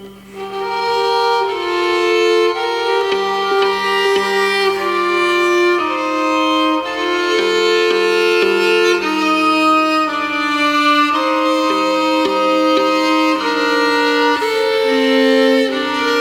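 Solo violin bowing a slow melody of sustained notes over a held low open-string note, in double stops.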